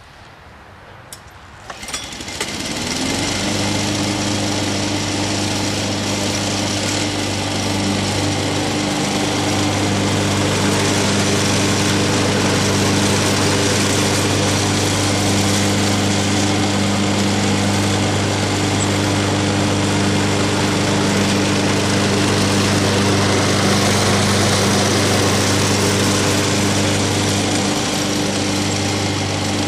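A 28-year-old Snapper Hi-Vac commercial walk-behind mower's 4-horsepower Wisconsin Robin engine running at a steady speed while mowing. The sound comes up over the first few seconds and then holds steady.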